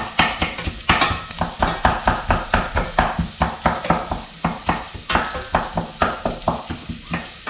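Wooden spoon stirring and scraping around a stainless steel saucepan of chopped onions, chilies, ginger, galangal and kaffir lime leaves frying in coconut oil, in quick regular strokes about four a second.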